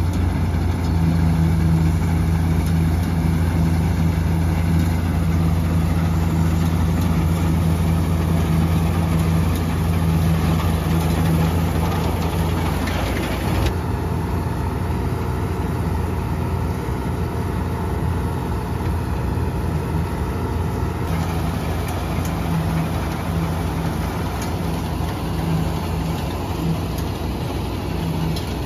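Deutz-Fahr combine harvester running steadily while harvesting barley: a loud, steady low drone from the diesel engine and threshing machinery. The sound changes abruptly about halfway through and again about two-thirds of the way through.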